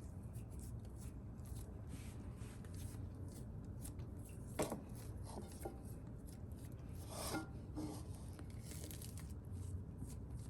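Wet hands stretching and folding sticky sourdough dough in a bowl: faint rubbing and sticky clicking, with a couple of sharper taps about four and a half and seven seconds in, over a steady low hum.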